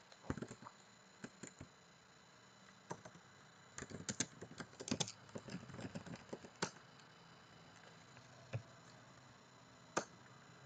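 Computer keyboard typing: quick runs of key clicks, densest from about four to six and a half seconds in, with a few single keystrokes near the end.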